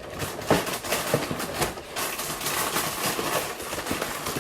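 Cereal box being handled: dry cereal rattling and pouring, with crackly rustling of the packaging.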